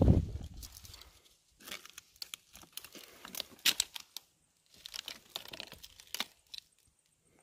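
Irregular crinkling and crackling close to the microphone, in short clusters, after a low rumble that fades in the first second; it stops suddenly near the end.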